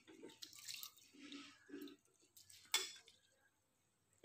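Hand swishing and rubbing rice grains in water in a steel bowl while washing the rice, making faint, irregular sloshing and small splashes. There is one sharper splash about three-quarters of the way through.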